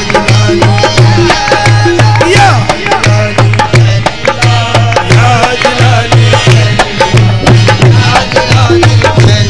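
Qawwali music: a melody line over tabla drumming, with a steady pulsing beat and many sharp drum strokes.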